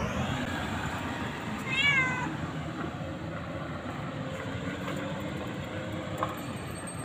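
A tabby cat meows once, a short call about two seconds in that rises and then falls in pitch, over steady outdoor background noise. A single sharp click comes about six seconds in.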